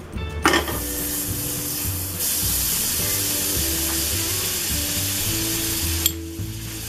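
Butter melting and sizzling in a hot nonstick kadhai, a steady hiss that grows louder about two seconds in. A single sharp click near the end.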